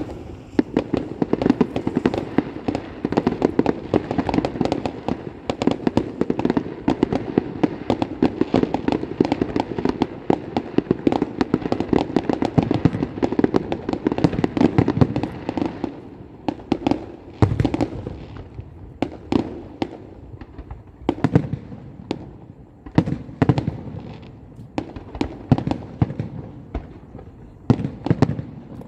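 Firecrackers going off: a dense, rapid string of cracks for about sixteen seconds, then thinning to scattered separate bangs.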